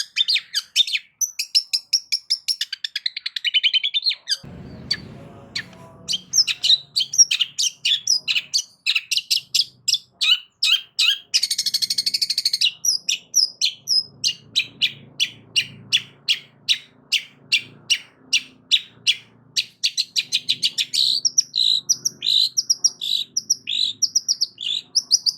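Long-tailed shrike (cendet) singing loudly: long runs of fast, sharp repeated chattering notes, with a brief pause early on and one harsh rasping burst about halfway through.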